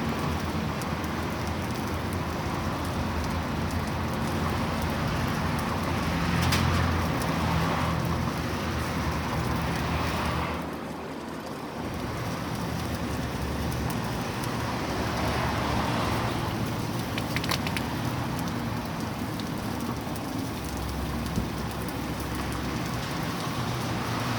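Pork burger patties sizzling on a hot griddle, a steady crackling hiss that briefly dies down about ten seconds in, over a low steady hum.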